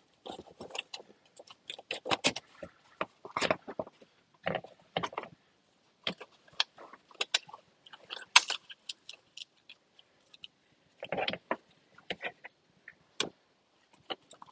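Hands handling wiring connectors and a rubber boot in a car's engine bay: irregular clicks, taps and rustles of plastic and rubber, a few louder than the rest.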